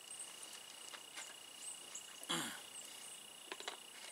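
A man drinking from a plastic water bottle over a steady high insect tone, with a short sound falling in pitch about two seconds in. Light plastic clicks from the bottle and cap follow near the end.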